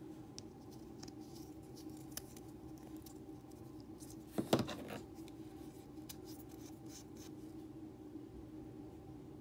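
Small clicks and scratches of hands handling the two-part JB Weld and mixing paper on a workbench, over a faint steady hum. A brief, louder clack comes about four and a half seconds in.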